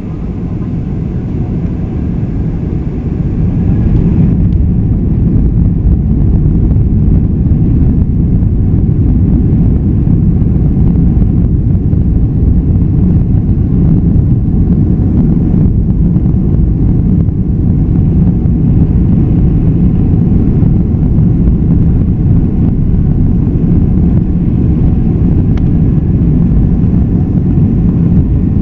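Boeing 747-400 jet engines building to takeoff power, then a loud, steady rumble during the takeoff run. The level climbs over the first few seconds and then holds.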